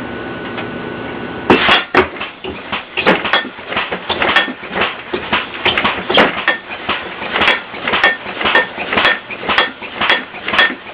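Compressed-air-powered alarm contraption going off: a steady hiss for about a second and a half, then a long run of rapid knocks and clanks, about three a second.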